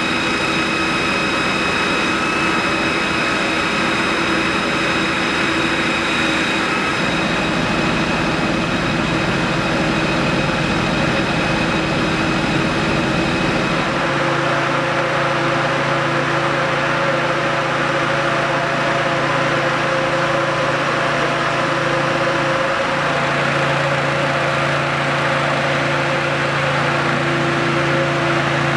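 Fire truck engines running steadily at idle, with a high steady whine over them that stops about halfway through, then a lower steady engine note.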